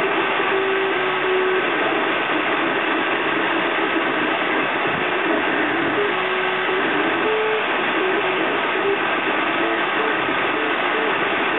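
Desktop 3D printer at work: its stepper motors sing in short tones that hop from pitch to pitch as the print head moves, over the steady rush of the cooling fans.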